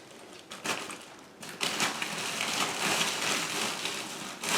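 Plastic vacuum storage bag rustling and crinkling as folded clothes are pushed into it, starting about a second and a half in after a brief rustle near the start.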